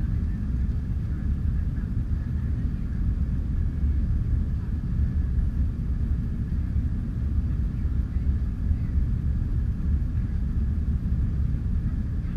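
Jet airliner cabin noise during the climb: a steady low rumble of engines and airflow, with a faint steady whine above it.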